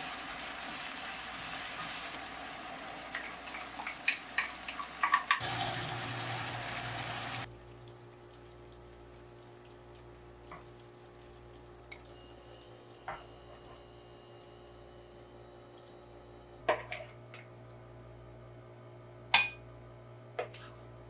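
Chicken and sauce sizzling in a frying pan, with tongs clicking against the pan, for about the first seven seconds; then the sizzling stops suddenly. After that a low steady hum stays, with a few scattered clinks of tongs and plate, the loudest near the end.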